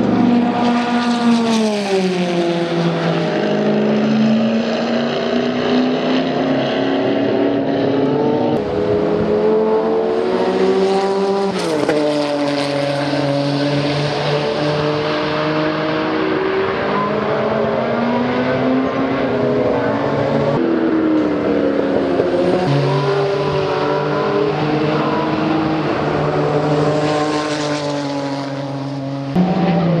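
Porsche 962C Group C race car's twin-turbocharged flat-six engine heard over several passes, its note falling in pitch as it goes by and rising again as it accelerates. The sound jumps abruptly several times where clips are joined.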